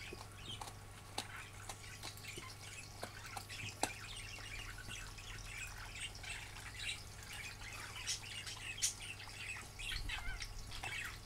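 A husky chewing and crunching a dry bone-shaped chew treat, with scattered sharp cracks as pieces break off. Small birds chirp steadily in the background.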